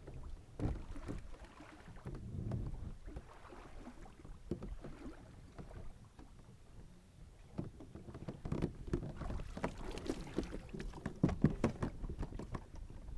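Water splashing and knocking against a kayak's hull in irregular thumps and slaps, busier in the last few seconds.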